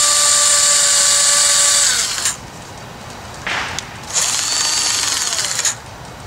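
Cordless drill with a 3/16-inch bit running at full speed, boring out the old wooden handle stuck in the eye of a sledgehammer head. It winds down about two seconds in, gives a short blip, then runs again for about a second and a half near the end.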